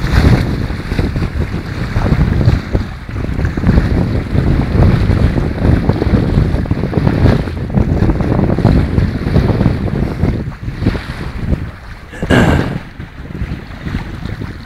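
Strong wind buffeting the microphone in gusts over the wash of the sea. A short, brighter rush of noise comes about twelve seconds in.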